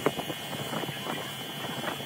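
A paint spray gun hissing as it sprays, over a steady mechanical hum with a high whine. A run of irregular clicks and knocks is loudest near the start and again near the end.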